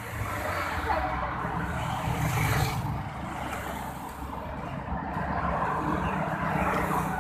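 Road traffic: cars and other vehicles running past, a steady rumble that swells briefly about two and a half seconds in as one passes closer.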